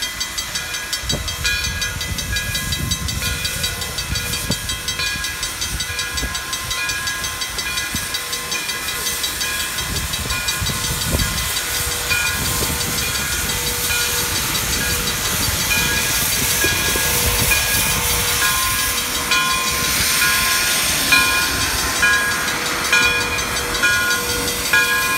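Frisco 1630, a 2-10-0 steam locomotive, working under its own power with its cylinder cocks open, steam hissing loudly and the exhaust chuffing. A repeated ringing tone sounds over it throughout.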